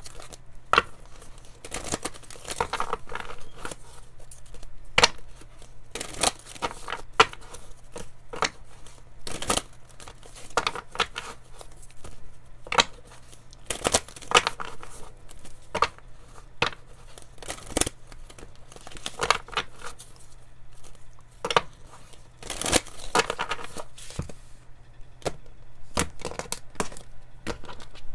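A deck of oracle cards shuffled by hand over and over: a long run of quick papery flicks and slaps, coming in uneven bursts.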